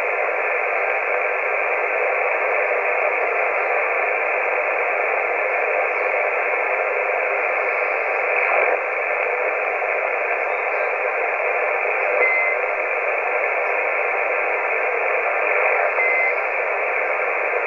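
Steady static hiss from a CB radio receiver's speaker, with no voice coming through, in the narrow muffled range of radio audio. Two brief faint beeps sound in the second half.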